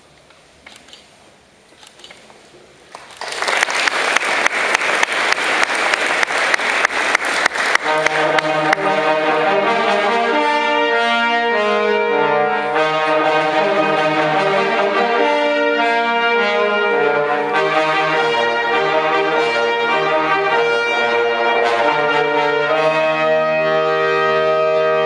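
Audience applauding, a dense burst of clapping that starts about three seconds in and fades after several seconds. As it fades, instrumental music begins with held chords that go on to the end.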